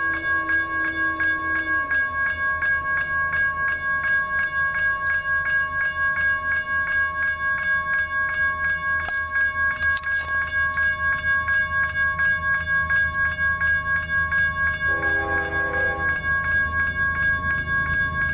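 Grade-crossing warning bell ringing steadily with rapid, even strokes over the low rumble of an approaching BNSF diesel freight locomotive. About fifteen seconds in, the locomotive's air horn sounds one short blast.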